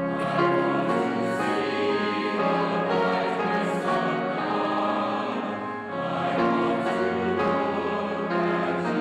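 Music: a choir singing.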